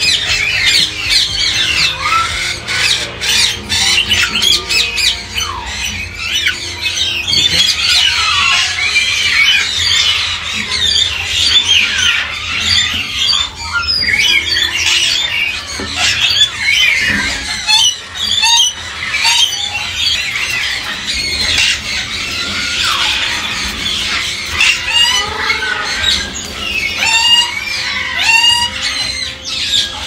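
Caged parrots squawking and chattering, many overlapping calls at once, with a run of short rising squawks near the end.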